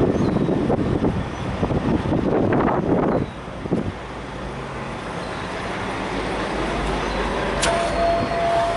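Truck-stop vehicle noise: engines and traffic, loudest and most uneven in the first three seconds, then settling to a steady low hum. Near the end there is a sharp click followed by a steady high tone.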